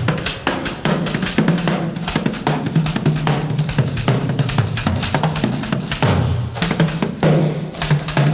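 Band music driven by drums and a tambourine, with a dense steady rhythm of strikes over a low bass line.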